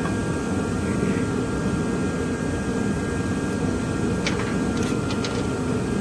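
Steady fan noise running without change, with a few faint light clicks of small torch parts being handled near the end.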